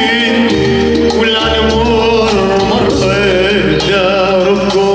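A male singer's voice, with wavering, ornamented lines, over electronic keyboards playing Arabic music.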